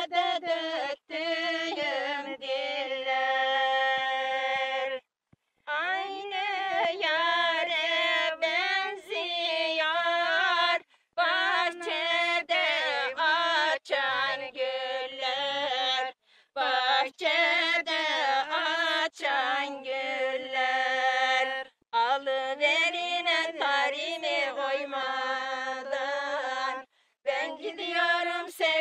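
Unaccompanied female singing of a Turkish folk song (türkü), long melodic phrases with short breath breaks about every five to six seconds.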